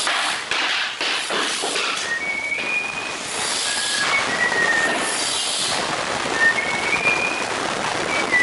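Hammer knocking a wooden tapping block against laminate floor planks to drive the click joints closed, in repeated irregular knocks. Short high whistled notes step up and down in pitch over the knocking.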